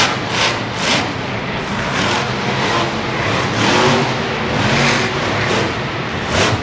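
Monster truck's engine revving hard in repeated surges, its pitch rising and falling.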